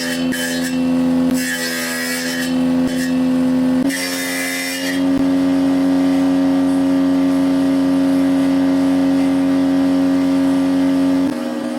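Electric woodworking power tool running at a steady pitch, with several bursts of hissing cutting noise in the first five seconds as it works wood. About 11 seconds in, the pitch steps slightly up.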